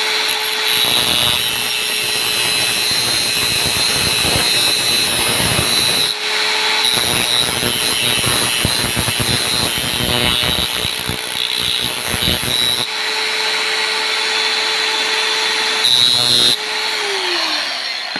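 Bosch angle grinder with a thin cut-off disc, running with a steady whine while the disc grinds the freshly cut end of a threaded steel bolt into a slight taper. The grinding comes in several passes with short breaks. Near the end the grinder is switched off and its whine falls away as the disc spins down.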